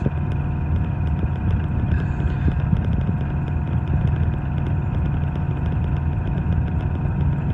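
Steady drone of a car's engine and tyres, heard from inside the cabin while driving on a deep, snow-covered road.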